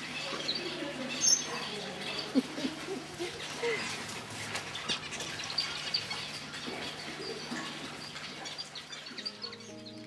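Small exotic finches in an aviary, zebra finches among them, chirping and calling over one another in many short notes, with two sharper clicks in the first few seconds. Soft music fades in near the end.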